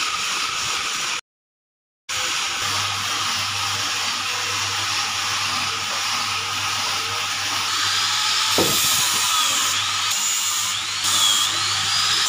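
Electric drill running steadily, its sound cut off for about a second near the start.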